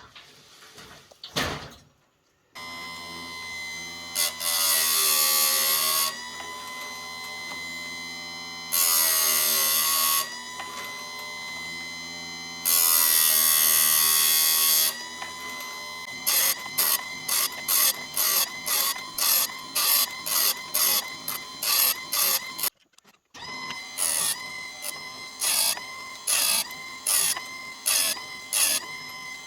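Small electric chainsaw sharpener switched on about two seconds in, its motor humming steadily. The grinding wheel rasps against the chain three times for a couple of seconds each, then touches it in quick short grinds about twice a second.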